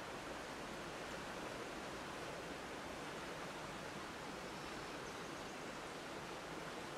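Steady rush of a swollen river in flood, its fast brown water running over a submerged road.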